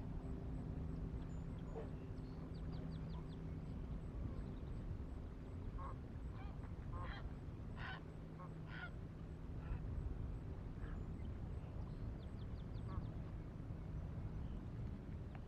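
Waterbirds calling, a run of short calls in the middle, over a steady low hum that fades a few seconds in and returns near the end. Two quick high trills come in, once early and once near the end.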